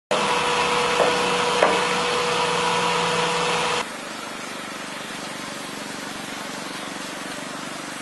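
A loud steady mechanical noise with a constant hum and two sharp clicks, cut off abruptly a little under four seconds in. After it comes the quieter, steady running of the small motor of a ride-on miniature CAT-badged crawler bulldozer as it moves over snow.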